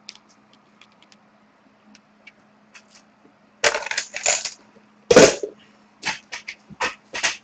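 Hard plastic card holders being handled and set down on a table: scattered clacks and clicks, with a heavier knock about five seconds in. A faint steady hum runs underneath.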